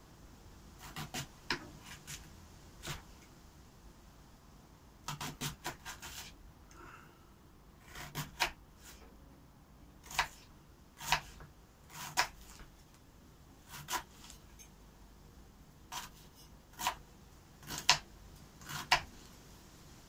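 Kitchen knife chopping an onion into small dice on a wooden cutting board: sharp, separate chops, a quick run of about six around five seconds in, otherwise single chops about a second apart.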